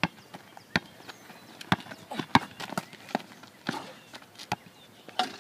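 A basketball bouncing on an asphalt driveway during a one-on-one game, a series of sharp irregular bounces about half a second to a second apart, mixed with sneakers scuffing on the pavement.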